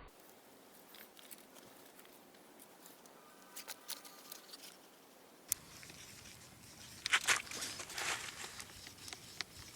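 Faint scraping and tapping of JB Weld epoxy being worked onto the patch on a metal water tank: a few light clicks, then a short run of scratchy strokes later on.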